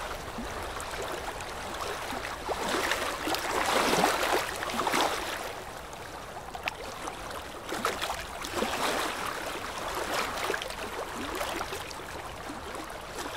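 Small waves sloshing and splashing right at the waterline, an irregular wash of water noise with many little splashes, loudest about four to five seconds in.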